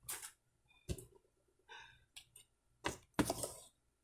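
Small toy pieces and packaging handled on a tabletop: scattered light clicks, taps and rustles, with a louder cluster of clicks near the end.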